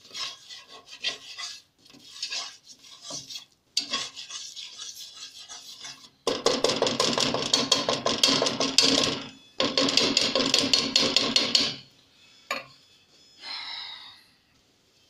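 A nylon whisk scrapes and beats a thick flour-and-oil roux against the bottom of a nonstick saucepan. It goes in bursts of rapid strokes, loudest and fastest from about six seconds in, then lighter near the end.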